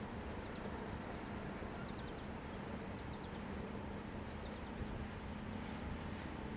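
Steady low rumble and hum of a slow-moving freight train, with small groups of short, high bird chirps every second or so.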